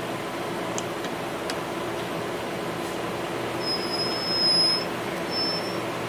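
Arpeco label machine running fast at its 100 setting, a steady mechanical drone with a couple of light ticks early on. A high, thin squeal starts about three and a half seconds in, stops, and comes back briefly near the end.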